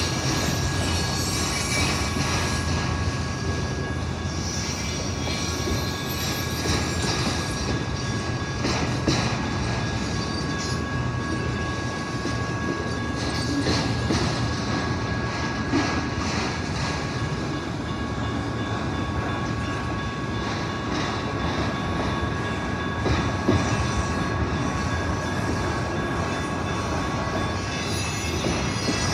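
Freight train of enclosed autorack cars rolling past, a steady rumble of steel wheels on rail with scattered clicks over the rail joints and a thin, steady squeal from the wheels.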